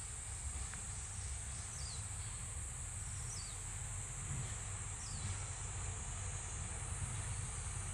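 Steady high buzzing of insects over the low rumble of a diesel railcar drawing slowly closer. A bird gives three short falling calls, about two, three and a half, and five seconds in.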